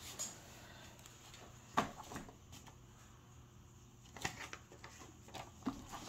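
Quiet handling sounds: a few soft knocks and rustles as a cash budget binder is moved off the table, the sharpest knock about two seconds in.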